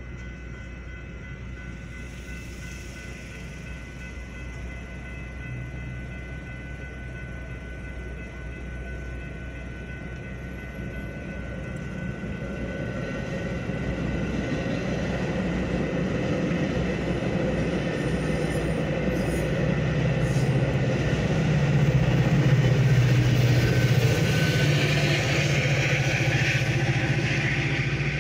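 Metra bilevel commuter train passing over a road crossing. Its rumble and wheel noise build from about halfway through and are loudest a few seconds before the end.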